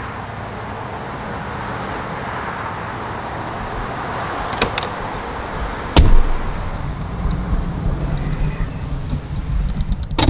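Steady traffic noise, then a car door shutting with a loud thump about six seconds in. A low rumble follows inside the car, and there is a second thump at the end, as of the door not latching and being shut again.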